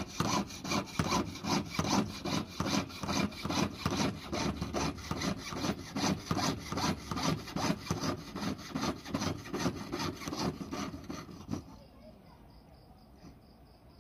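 Jeweller's piercing saw cutting through a metal ring's band, with steady back-and-forth strokes at about three a second. The sawing stops a couple of seconds before the end.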